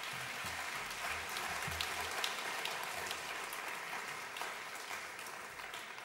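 Audience applauding steadily, the clapping thinning out and fading over the last couple of seconds.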